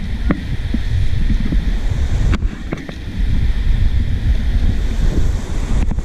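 River rapids rushing around an inflatable raft, with wind buffeting the microphone of a raft-mounted action camera.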